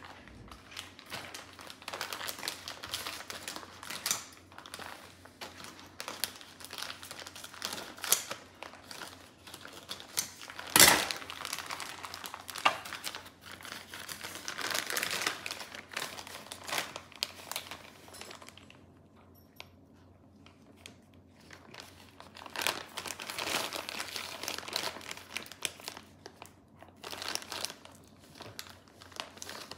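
Plastic bag of shredded cheese crinkling in irregular bursts as it is cut open with scissors and rummaged through by hand, with one sharp knock about eleven seconds in.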